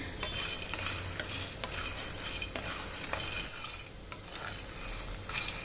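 Makhana (fox nuts) being stirred with a wooden spatula as they roast in an aluminium kadhai: soft scraping with scattered light clicks of the seeds against the pan.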